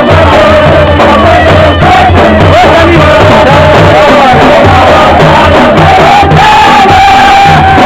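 Loud Balochi folk music for the chap dance: dhol drumming in a steady beat under a wavering melodic line that is held long near the end.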